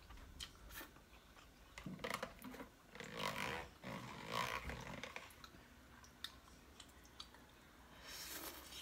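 A person slurping and chewing Korean ramen noodles close to the microphone: a run of louder slurps in the middle, with small clicks around them.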